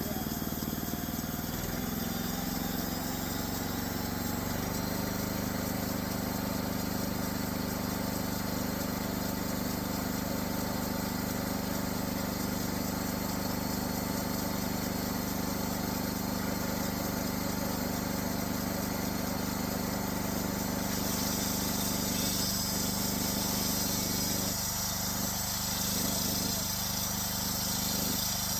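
Homemade band sawmill running, its engine and band blade humming steadily; a whine climbs in pitch over the first few seconds, then holds. About 21 seconds in, a higher hiss joins the sound.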